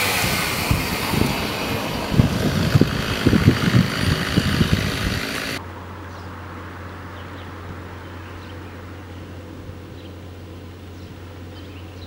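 Loud outdoor rumble of a vehicle, with irregular low thumps. About five and a half seconds in it cuts off abruptly to a quieter steady low hum with faint high chirps.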